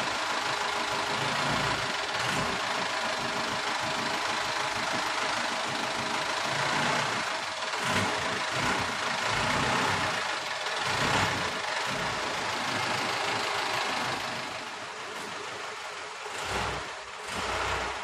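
T-King mini dump truck's engine running at idle, then the truck moving off under power in the latter part.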